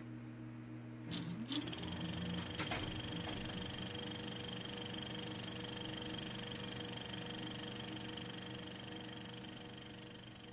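A small machine running with a steady hum. A few clicks come in the first three seconds, with a short rising whine about a second and a half in, and the sound fades out at the end.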